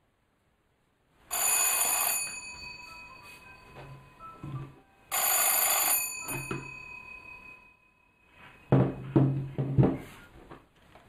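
Wall-mounted two-dome electric telephone bell, wired to a restored Marty Modèle 1910 magneto phone, rings in two short bursts about four seconds apart, each leaving the bells humming as they die away. Several knocks follow as the handset is taken up and handled.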